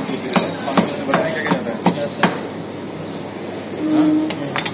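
Chef's knife chopping on a plastic cutting board: a quick run of about seven knocks, roughly three a second, over the first two seconds, then one more knock near the end.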